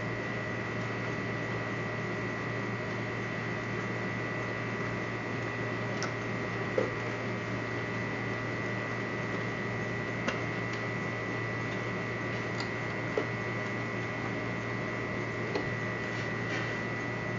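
Steady electrical hum with a thin, steady high-pitched whine over it, and a handful of faint, short clicks scattered through.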